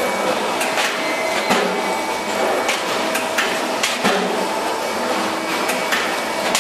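Sandpaper die-cutting press running with a steady hum, broken by sharp knocks at irregular intervals of roughly half a second to a second.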